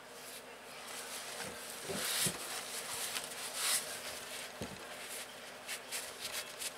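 Close handling noise: hands and a cloth rag rubbing and rustling against the camera's microphone in uneven bursts, with a few soft knocks and clicks.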